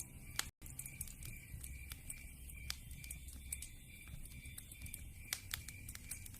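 Wood fire crackling in a fireplace: irregular pops and snaps of burning logs over a low rumble of flames, with the audio cutting out for an instant about half a second in.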